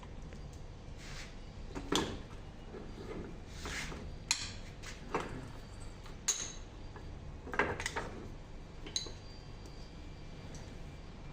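Metal parts and hand tools of a power steering rack being handled during reassembly: scattered clinks and knocks, several ringing briefly, about seven in all, the loudest about two seconds in and near eight seconds.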